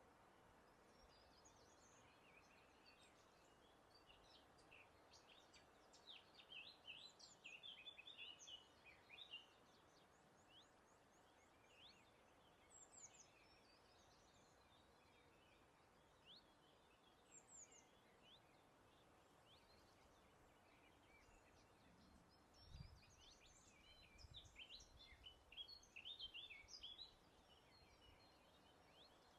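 Songbirds singing outdoors: quick, high twittering and chirping phrases that come in two busy bursts, a third of the way in and again near the end, with scattered single calls between, over a faint steady hiss of breeze.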